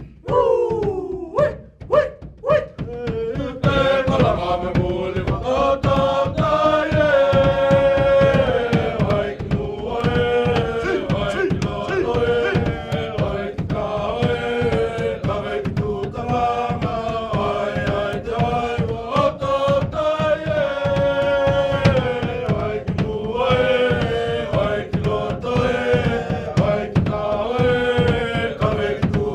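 A group of voices chanting a Tokelau pehe (action song) in unison over a steady rhythmic beat. A few short falling calls open it, and the full group singing comes in about three seconds in.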